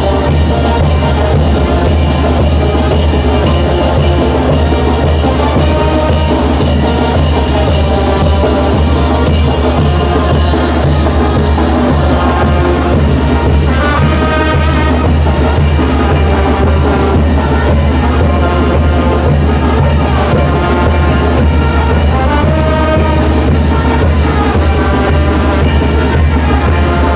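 A brass band (banda de viento) plays a chinelo son: brass melody over a steady, quick drum beat. This is the music that chinelo dancers jump to.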